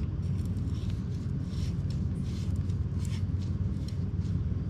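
A steady low hum, with faint scattered ticks and scrapes from fingers handling a twisted wire and hose clamp around a motorcycle oil filter.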